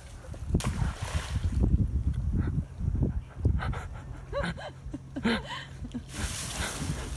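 Wind rumbling on the microphone, with scattered rustling and knocks during the first couple of seconds and some splashing of shallow water.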